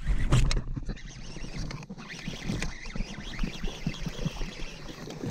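Baitcasting reel being cranked to retrieve a lure, with handling bumps and wind rumble on the microphone, loudest in the first second.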